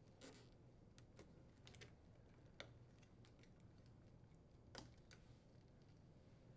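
Faint, scattered plastic clicks of refrigerator wire harness connectors being handled, their tabs pressed and the plugs pulled apart, over near silence.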